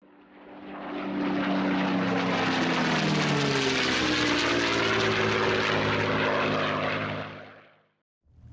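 Propeller aircraft flying past: the engine drone swells in, its pitch drops as it passes a few seconds in, and it fades away near the end.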